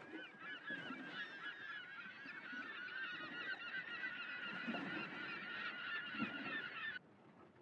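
A flock of birds calling over one another in a dense, chattering chorus that cuts off suddenly near the end.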